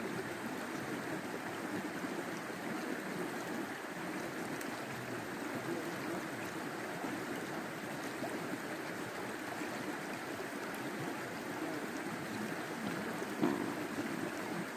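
Small stream running over shallow riffles: a steady rush of flowing water.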